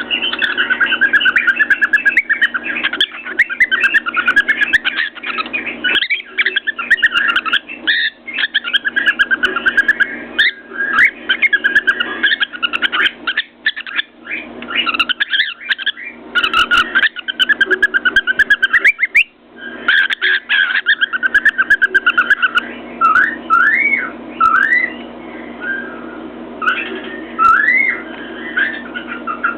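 Cockatiel whistling a long, warbling run of gliding notes, breaking into short, separate rising whistles near the end, with sharp ticks of its beak tapping against a mirror throughout.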